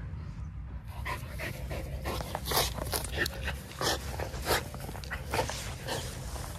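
Whippet sniffing at the grass close to the microphone: short, quick noisy breaths, two or three a second, starting about a second in, over a steady low rumble.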